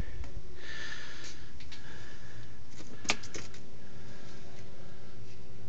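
A cluster of sharp clicks about three seconds in, from the ignition key switch being turned on the dash of a CFMOTO Z6 EX side-by-side, over a steady low room hum. A faint steady tone starts right after the clicks as the electrics come on.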